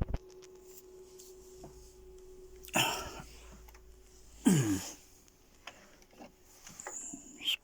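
A person clearing their throat and coughing: two short harsh bursts about three and four and a half seconds in, the second dropping in pitch. A faint steady hum runs underneath.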